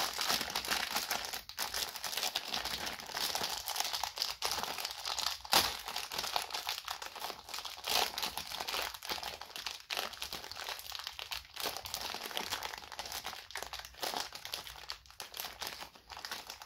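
Clear plastic film around a rolled-up speedcubing mat crinkling and crackling as hands pull and crumple it, a continuous run of small crackles with a few sharper snaps, the loudest about five and a half seconds in.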